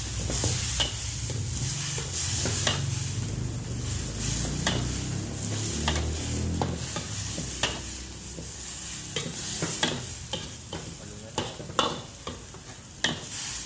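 A metal ladle stirring and tossing rice noodles and cabbage in a wok, scraping and knocking against the pan with scattered sharp clacks, over a steady sizzle of the frying food.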